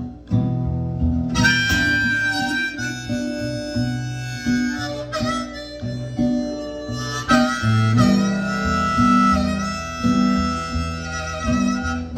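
Instrumental break in a song: a harmonica plays a lead line of held notes over acoustic guitar accompaniment.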